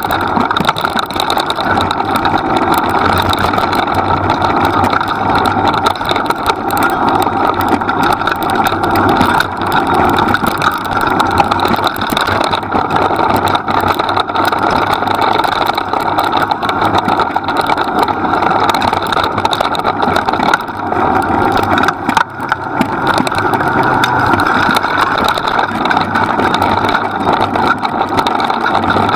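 Steady, loud rolling noise of a dog-drawn dryland rig running over a dirt and gravel forest track, mixed with wind on the microphone. It dips briefly about two-thirds of the way in.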